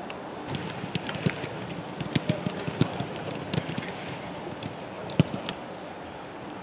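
Footballs being kicked: about a dozen irregular sharp thuds, the loudest about five seconds in, over steady background noise.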